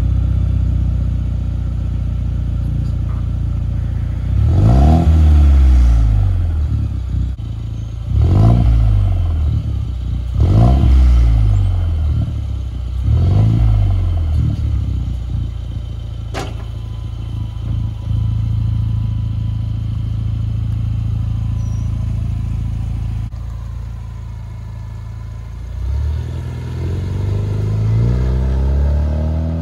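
2019 Ford Ranger's 2.3-litre turbocharged four-cylinder idling through a muffler-delete axle-back exhaust with the stock resonator kept, revved four times in quick blips, then idling steadily. A single sharp click comes in the middle. Near the end the truck pulls away, the engine rising and falling in pitch as it accelerates.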